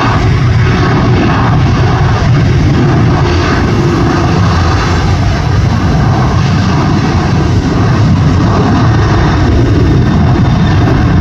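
Boeing 737 jet engines at takeoff power, a loud, steady low rumble as the airliner accelerates down the runway on its takeoff roll.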